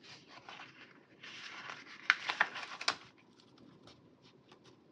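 Paper sticker sheets being handled and peeled: rustling with a few sharp crackles about two to three seconds in, then light taps.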